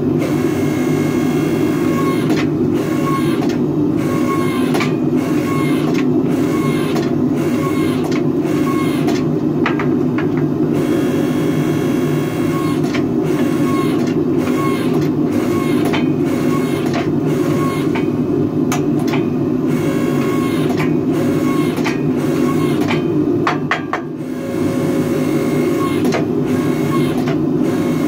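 Electric log splitter converted to a forge press: its electric motor and hydraulic pump run steadily with a loud hum while the ram squeezes a red-hot Damascus steel billet between the dies. Frequent sharp clicks and knocks sound throughout, and the sound dips briefly near the end.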